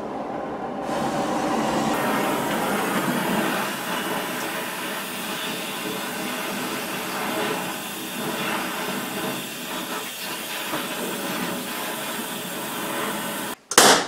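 Gas torch burning with a steady hiss, its flame played on the exhaust to heat a rusted-in oxygen sensor so it can be loosened. The hiss cuts off just before the end.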